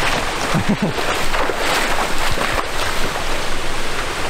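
Rushing river water along a rocky shore, mixed with wind buffeting the microphone, which sets off a few low thumps about two and a half seconds in. A brief shout comes just under a second in.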